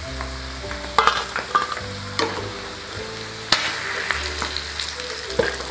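Battered egg pieces deep-frying in hot oil, with a steady sizzle. A metal slotted spoon scrapes and knocks against the pan a few times as the fried pieces are lifted out.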